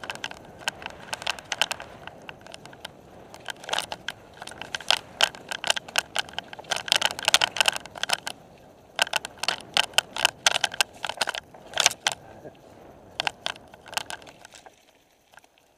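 Mountain bike rattling and clattering in irregular bursts as it rides fast over a rough trail, over a steady rush of tyre and wind noise; it quietens near the end.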